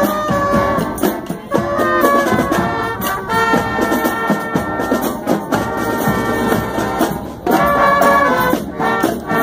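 Marching band playing: saxophones and trumpets sound held chords over a steady drum beat.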